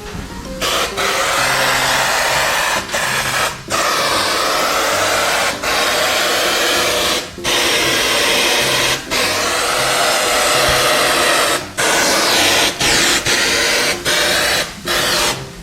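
Aerosol air-conditioner cleaning spray hissing loudly in long sprays with short pauses between them.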